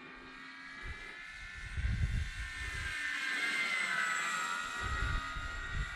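Electric motor and propeller of a Dynam Hawker Hurricane V2 radio-controlled warbird whining in flight, growing louder toward the middle as it passes by, its pitch shifting as it goes. Wind buffets the microphone a couple of times.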